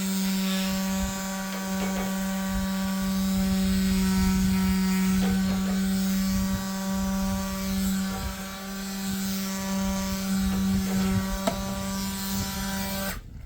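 Small electric power tool running at a steady speed while it grinds the cut ends of a short piece of metal conduit smooth, with rough scraping and scattered clicks as the metal is worked. The motor switches off abruptly near the end.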